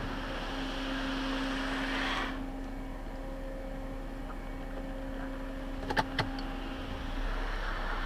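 Automatic car wash heard from inside the car: water spraying onto the car over a steady mechanical hum. The spray drops away about two seconds in and builds again near the end, and two sharp knocks come about six seconds in.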